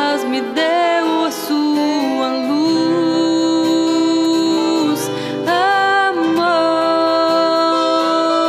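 A live song: a singing voice glides between notes and holds two long notes, over guitar accompaniment.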